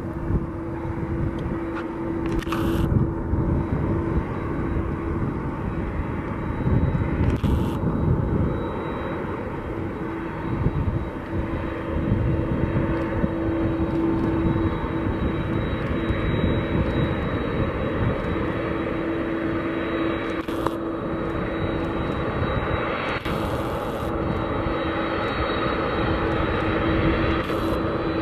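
Jet engines of a Boeing 767-200 freighter running, a steady drone with a steady hum tone through it and a few brief bursts of hiss.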